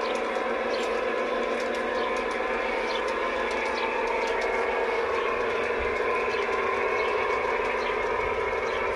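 G-scale garden railway model trains running, a steady hum and whine of their electric motors and gearing with faint light clicking of wheels over the track.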